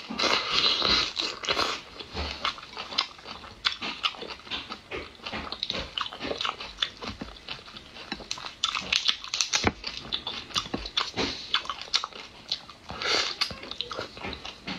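Close-miked biting and chewing of whole shrimp, with many quick crunchy clicks and crackles throughout.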